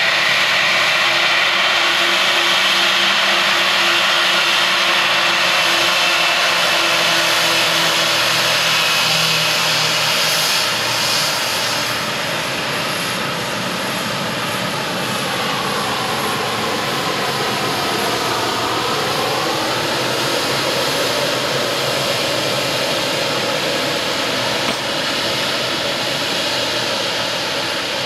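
Boeing 777X-9's two GE9X turbofans running as the airliner taxis past: a loud, steady jet roar and whine. A little past the middle, a tone in the whine dips in pitch and then rises again.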